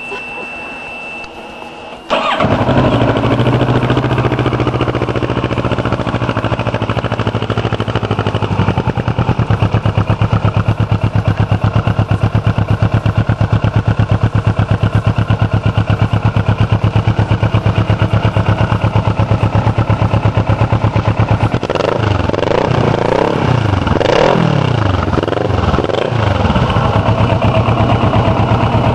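Kawasaki ER-6n parallel-twin engine starting about two seconds in through a G.P.R. GPE Titan aftermarket exhaust, then idling steadily. Near the end it is revved with several quick throttle blips, rising and falling in pitch.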